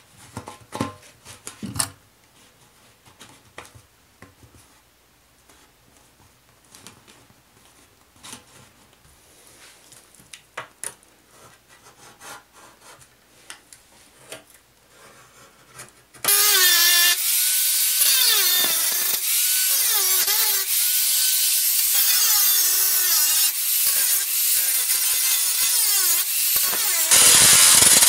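A utility knife scraping and clicking faintly as it cuts a cardboard template and scribes around it on sheet metal. About 16 seconds in, an angle grinder with a thin cut-off disc starts cutting the sheet steel: a loud whine whose pitch dips and rises, louder again near the end.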